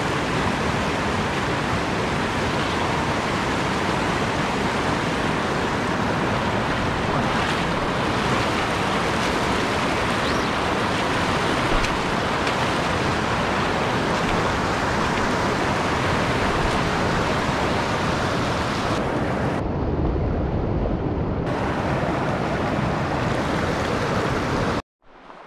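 Fast mountain stream rushing and splashing over boulders close by, a loud, steady roar of water. It is briefly muffled about twenty seconds in and cuts off suddenly near the end.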